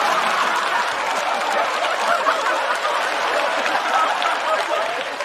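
Studio audience laughing and applauding together, a steady wash of clapping and laughter that slowly fades near the end.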